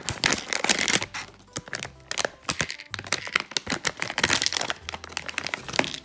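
Shiny plastic slime-kit packet crinkling and crackling in the hands as it is handled and torn open, in a rapid irregular run of crackles.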